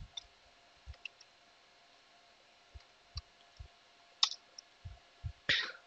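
Soft, sparse clicks of computer keyboard keys, about ten scattered over a few seconds, with one sharper click a little after four seconds. A faint steady hum sits underneath.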